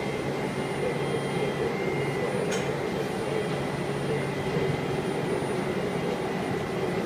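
Steady hum of heavy machinery running, a low drone under a faint high whine, with one light click about two and a half seconds in.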